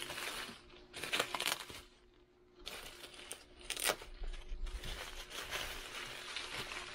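Plastic bubble wrap crinkling and crackling as it is handled and pulled open, in irregular spells with a brief lull about two seconds in and a sharper crackle near four seconds in.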